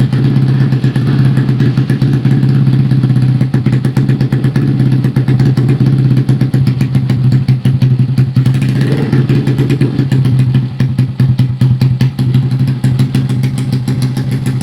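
Yamaha Jupiter motorcycle's single-cylinder four-stroke engine running at a steady speed: a loud, even engine note that holds its pitch.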